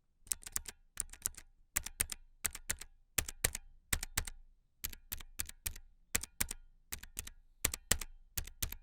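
Keys typed on an A4Tech Bloody B800 keyboard with Light Strike optical switches: sharp, crisp clicks in quick groups of two or three, about three or four strokes a second.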